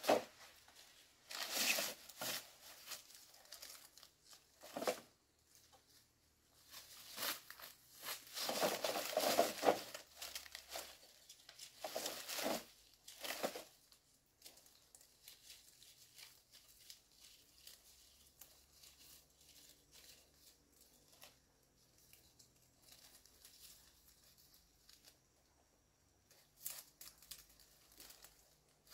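Irregular bursts of rustling and crinkling handling noise, then a quieter stretch of faint rustling, with the bursts coming back near the end.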